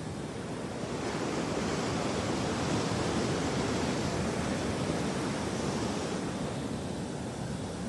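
Sea waves: a rushing wash of surf that swells about a second in and eases off again after about six seconds.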